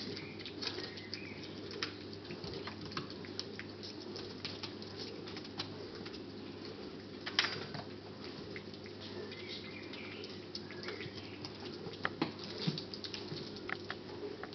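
Bengal kittens playing: scattered light taps, scuffles and patters of small paws, with a sharp knock about seven seconds in and a cluster of knocks near the end, over a steady low hum.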